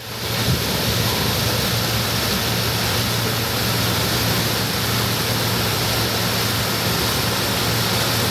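Allis-Chalmers Gleaner F2 combine harvesting corn: its 301 six-cylinder diesel engine and threshing machinery run steadily, a constant low hum under a broad rushing noise.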